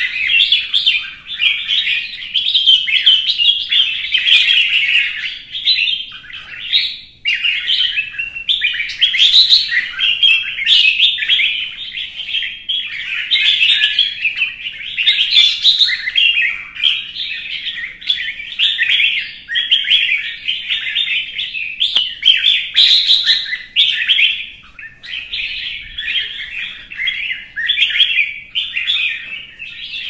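Red-whiskered bulbul singing its agitated fighting song, a rapid, unbroken stream of chattering, warbling phrases.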